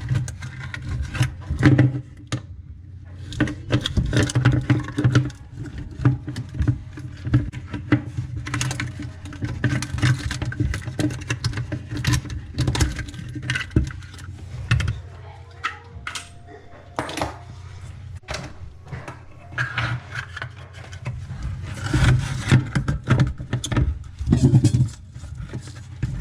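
Metal hand tools clinking, clicking and scraping against the faucet's supply-line fittings and lock nuts under a bathroom sink as they are loosened, with many sharp irregular clicks over a low steady hum.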